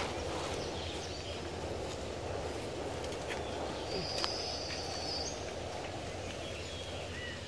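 Steady outdoor background noise at a pond's edge, with a single high, thin bird whistle lasting about a second a little past four seconds in and a few faint clicks.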